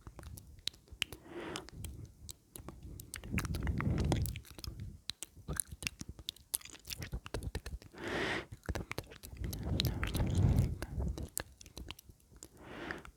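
Close-miked mouth sounds: a dense run of wet clicks and smacks of tongue and lips. Several longer breathy passages of about a second each come in between.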